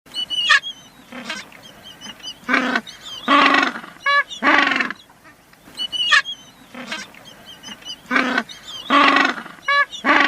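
Loud animal calls, several of them, with high chirping bird calls above, the same stretch of about five and a half seconds heard twice.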